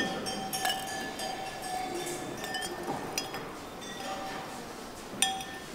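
A few faint clinks of glassware against a quiet room background, with a sharper clink about five seconds in.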